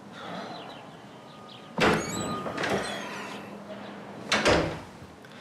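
A door being moved: a sudden swish with short squeaks after it about two seconds in, and a second swish about four and a half seconds in.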